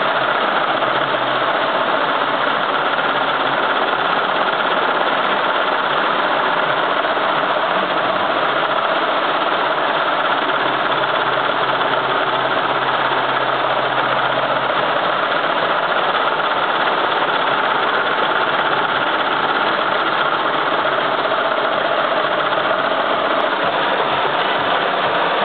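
A 15-needle commercial embroidery machine running steadily, its needle bar stitching a design into a cap on the cap frame.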